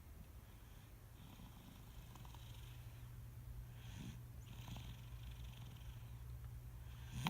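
A sleeping girl snoring softly: a low, purring rumble with the hiss of her breathing swelling and fading about every three seconds, and a brief louder sound right at the end.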